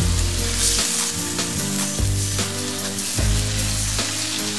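Onion, ginger-garlic paste and freshly added chopped tomatoes sizzling in hot oil in a wok, stirred with a metal spoon, over background music of held notes.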